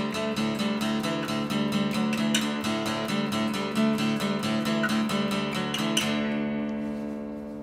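Intro music of strummed acoustic guitar in a steady rhythm, ending about six seconds in on a chord that rings out and fades.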